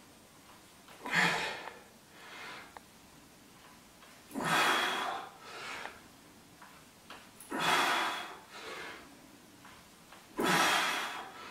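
A man breathing hard through barbell squat reps: four loud, forceful breaths about three seconds apart, each followed by a softer breath.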